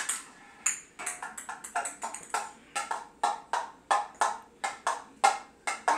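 Plastic toy golf club head tapping and knocking on a tile floor, a quick uneven run of sharp clacks, about three a second.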